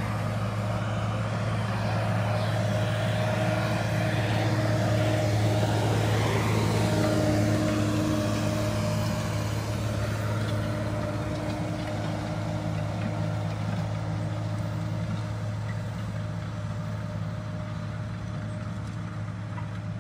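Tractor engine running steadily under load as it pulls a plough through the field, growing louder as it comes close about a third of the way in, then slowly fading as it moves off.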